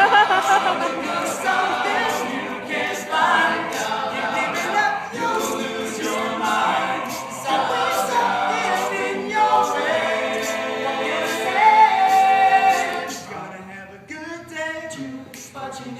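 A male a cappella group singing in close harmony, several voices together with no instruments; the singing eases down about thirteen seconds in.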